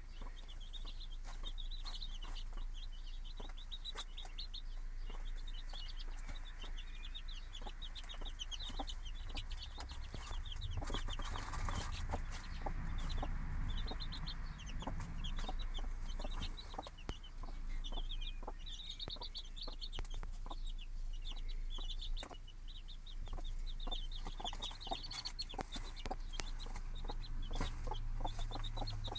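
Newly hatched chicks peeping in rapid runs of short, high cheeps, with a broody hen clucking softly among them.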